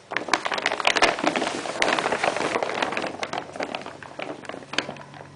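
Brown paper bag crinkling and rustling as a cat shifts inside it and a puppy noses at it: a dense crackle, loudest for the first three seconds and then dying down.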